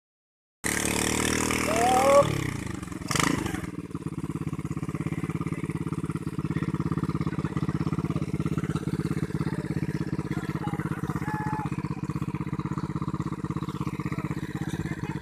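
Small engine of a rice machine running steadily with a fast, even chugging beat. In the first few seconds its pitch rises, then drops, and a sharp knock comes about three seconds in.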